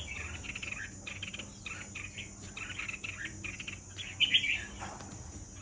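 Caged red-whiskered bulbuls giving short, harsh chattering calls again and again, with a louder flurry about four seconds in. This is the 'ché' call that bulbul keepers take as the sign of an aggressive bird squaring up to fight.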